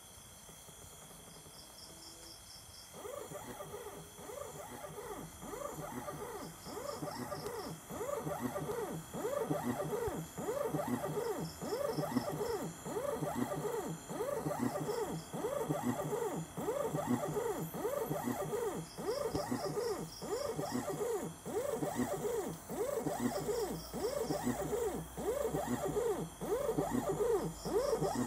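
NEMA 23 stepper motor driven by a TB6600 driver from a 36 V supply, running a repeated back-and-forth test move: its whine rises and falls in pitch over and over. It starts about three seconds in and grows louder over the next few seconds.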